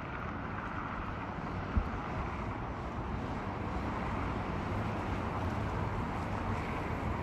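Distant roar of an Airbus A350-900's Rolls-Royce Trent XWB jet engines on landing approach, a steady rushing noise slowly growing louder, with wind buffeting the microphone and one brief low thump about two seconds in.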